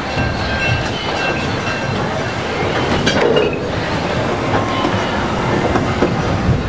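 Cedar Point & Lake Erie Railroad passenger cars rolling along the track, heard from aboard: a steady rumble and clatter of wheels on rails with a faint high squeal.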